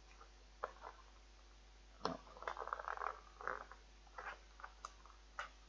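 Fingers and nails picking, scratching and tearing at a chocolate box's packaging and sticky tape to open it by hand: soft, irregular scratches and crinkles, busiest in the middle.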